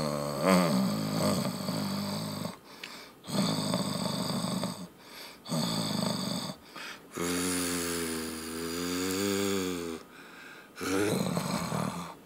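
A person imitating a car engine with their voice for a toy car: five buzzing engine noises of one to three seconds each. The longest, about halfway through, wavers up and down in pitch.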